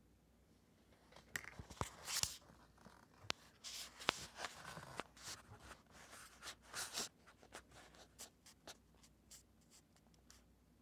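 Kitchen knife cutting sausage links on a cutting board: rustling and scraping handling sounds with sharp clicks, then a run of lighter, quicker taps in the second half.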